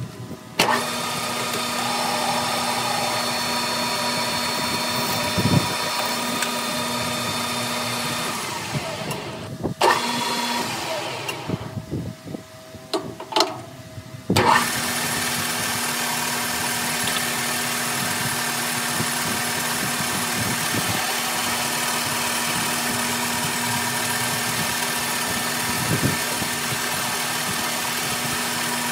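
Metal lathe motor and spindle running, sped up to double speed: it starts with a sudden jump in level about half a second in, winds down around eight seconds, runs briefly near ten seconds, then starts again about fourteen and a half seconds in and runs steadily. A few sharp clicks and knocks come while it is stopped.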